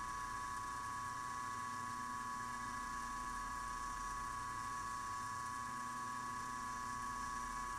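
Benchtop milling machine running at its top spindle speed of about 2500 RPM, a steady whine that holds unchanged throughout.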